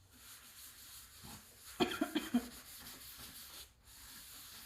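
Faint rubbing as heavy duty polishing compound is spread by hand over a sanded plastic headlight lens. About two seconds in there is a brief, louder vocal sound, like a cough or short laugh.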